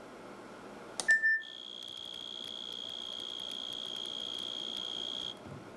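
Synthesized cricket song played from a loudspeaker: a steady high-pitched tone. It starts about a second in, just after a sharp click and a short lower beep, and cuts off near the end.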